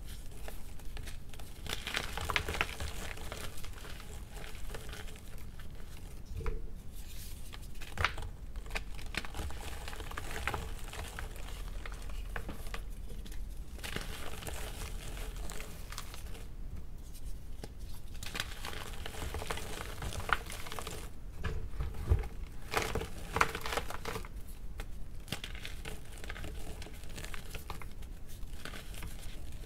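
Soft gym chalk blocks crushed and crumbled by hand in a tub of loose chalk powder. Dry crunching comes in irregular bouts, with a few sharp snaps where pieces break.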